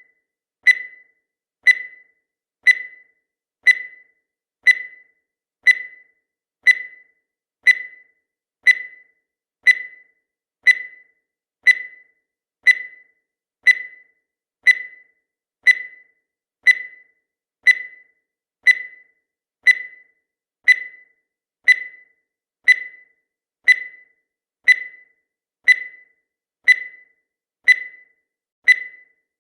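Countdown timer sound effect: a short, high tick once every second, each one dying away quickly.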